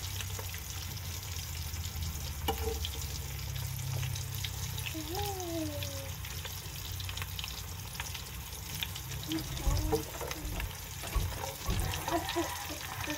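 Hot cooking oil sizzling and crackling steadily as pieces of meat deep-fry in a pan.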